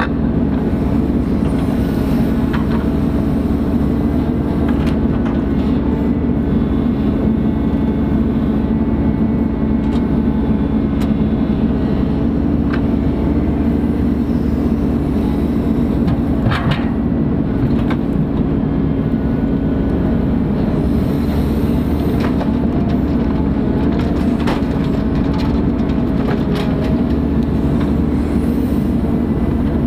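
Ponsse Buffalo forwarder's diesel engine running steadily with a constant hum, with a few brief knocks, the clearest about halfway through.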